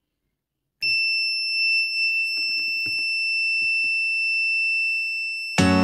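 Piezo buzzer in a small battery-powered transistor alarm circuit sounding one continuous high-pitched beep. It starts about a second in and holds steady for nearly five seconds, with a few faint knocks under it.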